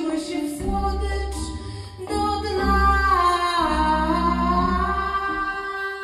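Live experimental music: a woman's voice singing long, wordless held notes together with a clarinet, over a low bass that comes and goes. About halfway through, a held note sags in pitch and climbs back.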